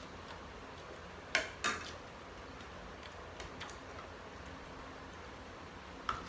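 Tableware clicking during a meal: two sharp clicks about a second and a half in, then a few fainter clicks and one more near the end.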